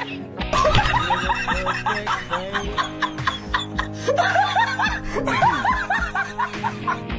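A person laughing in quick repeated bursts over background music.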